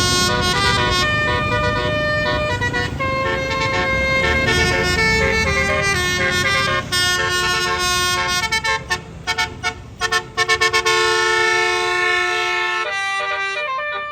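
Basuri telolet horn on a tour bus playing a tune of multi-tone notes that step from pitch to pitch, with a quick run of short staccato blasts in the middle, over the low rumble of the bus's engine.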